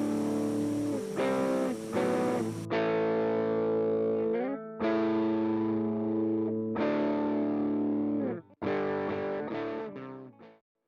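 Background guitar music: held chords changing every second or two, some sliding into the next, then thinning out and fading away near the end.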